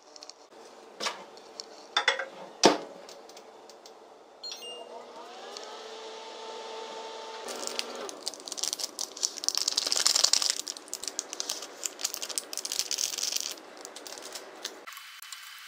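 Wooden bowls set down on a table with a few sharp knocks, then a small plastic sachet of dried seaweed flakes crinkling and rattling for several seconds as it is shaken out over the noodles.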